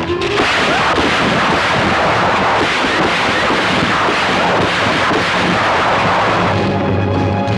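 A long burst of rapid, overlapping gunfire lasting about six and a half seconds, which cuts off sharply near the end.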